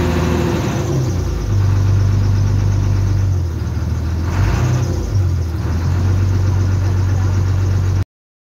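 Passenger river boat's engine running underway, a loud steady low hum heard from inside the covered passenger deck. Its note shifts a few times, and the sound cuts off abruptly near the end.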